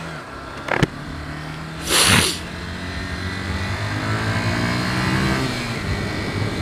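Motorcycle engine running as the bike rides through traffic, its pitch climbing steadily as it accelerates and dropping again near the end. A sharp click about a second in and a brief loud rush of noise about two seconds in cut across it.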